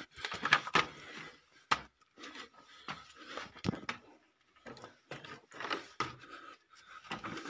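Irregular scuffs, knocks and rubbing of someone squeezing through a tight rock cave passage, with short pauses between.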